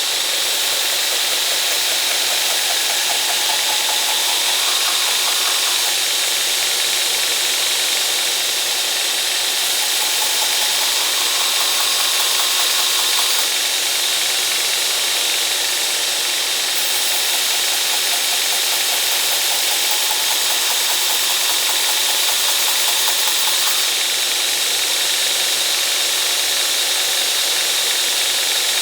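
Belt grinder running with a Trizact abrasive belt, grinding steel on the slack of the belt: a loud, steady grinding hiss with a constant high whine.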